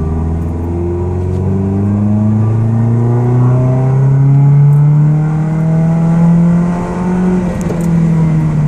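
Ford Ranger pickup's engine pulling hard under acceleration, its exhaust note through a Flowmaster 40 Series muffler, heard from inside the cab. The note climbs steadily for about six seconds, then levels off near the end.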